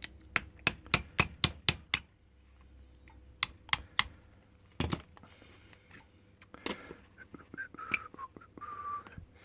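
Small sharp metal clicks from an old brass padlock being handled and worked: a quick run of about eight in the first two seconds, then a few scattered clicks, with faint short squeaks near the end.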